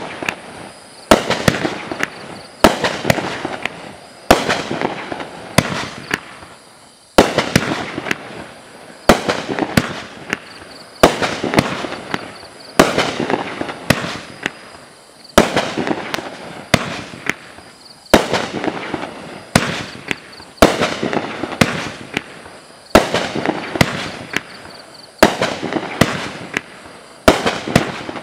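Dominator Nishiki Thunder consumer fireworks cake firing shot after shot, about one every one and a half to two seconds. Each shot is a sharp bang followed by a crackling tail that dies away.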